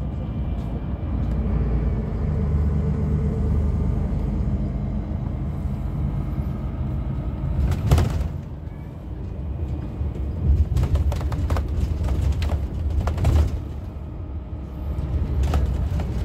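Cabin noise of a Temsa Safari HD coach under way: a steady low engine and road rumble. A few sharp knocks sound over it in the second half.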